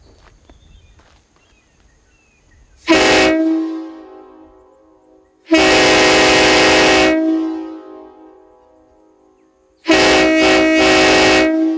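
Homemade PVC replica of a K5LLA five-chime locomotive horn blown on air in three loud blasts: a short one, a long one and a final one broken by a few quick stutters. Each blast is a chord of several tones, and its sound echoes back after it stops.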